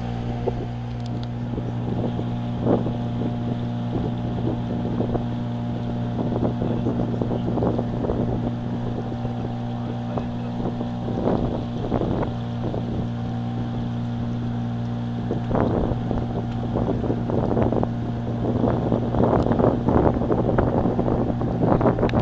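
Small motorboat's engine running with a steady drone, with wind buffeting the microphone and irregular rushing noise that gets busier near the end.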